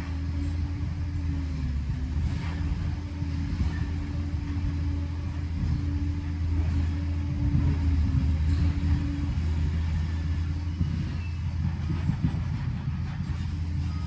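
Liebherr 746 crawler dozer's diesel engine running with a steady low rumble and a droning hum, growing somewhat louder just past the middle.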